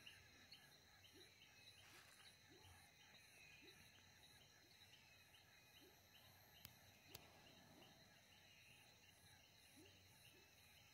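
Faint night chorus of frogs and toads calling at a pond: short low rising calls repeating about once a second, over steady, rapid high pulsing calls.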